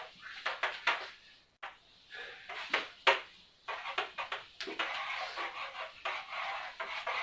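Whiteboard eraser wiping across a whiteboard in a run of short, irregular scrubbing strokes.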